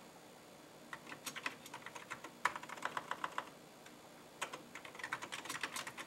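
Keys being typed on a Commodore Amiga 1000 keyboard with mechanical key switches: three quick runs of clicking keystrokes with short pauses between them.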